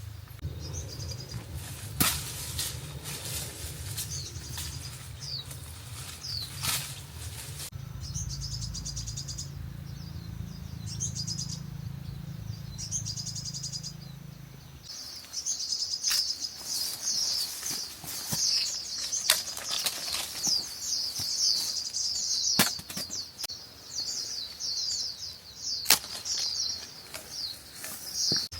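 Small birds chirping in quick high twittering runs, thickening into a near-continuous chatter from about halfway on, with a few sharp clicks or snaps scattered through. A low steady rumble underneath stops about halfway.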